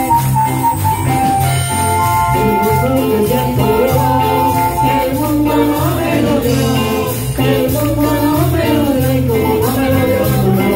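Live church band playing an upbeat Latin-style coro on electric guitar, electric bass and electronic keyboard, over a steady repeating bass line.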